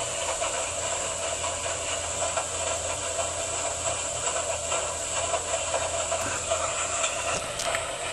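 Washing machine running: a steady machine hum with a hissing, rattling wash noise. The low hum drops away near the end.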